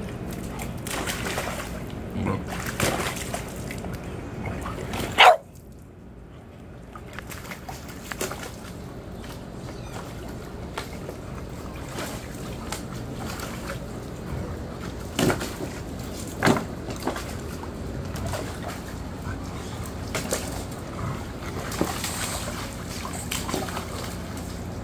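Water splashing and sloshing in a plastic kiddie pool as a golden retriever puppy paws and jumps about in it, with a few sharp louder sounds; the loudest, about five seconds in, is short and rises in pitch.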